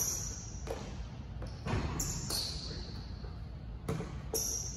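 A basketball bouncing on a hard sport-court floor and being caught, with about six sharp, irregularly spaced thuds.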